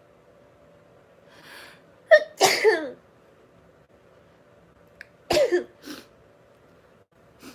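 A woman sneezing twice, about three seconds apart. The first sneeze comes after a sharp breath in.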